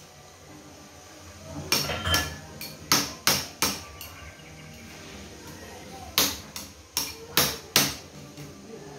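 Hammer blows on metal, in short runs of two to four strikes with pauses between, each with a brief ring; about ten blows in all.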